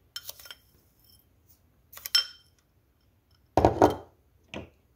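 A metal spoon clinking twice against a glass bowl while breadcrumbs are shaken out, then the glass bowl set down on a stone countertop with a louder, duller knock, followed by a light tap.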